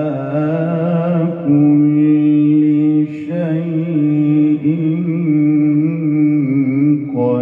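A man's solo voice reciting the Quran in the melodic tilawah style into a microphone, holding long ornamented notes that waver in pitch, with short pauses for breath about a second and a half, three seconds and seven seconds in.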